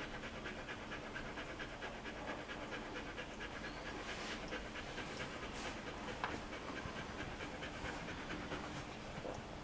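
A mother dog panting rapidly and evenly, open-mouthed, while her newborn litter nurses from her.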